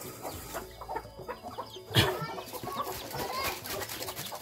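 A spoon scraping and knocking in a bowl as fried food is stirred with its seasoning, with one sharp knock about two seconds in, over chickens clucking in the background.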